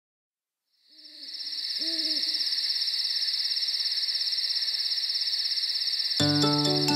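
Night-time sound effects: a steady high cricket trill fades in, and an owl hoots a few times about one to two seconds in. Gentle children's music with bright struck notes starts about six seconds in.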